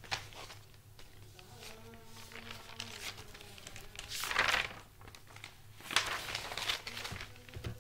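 Faint rustling and crinkling with scattered clicks over a low steady hum. A louder rustle comes about four seconds in and another near six seconds.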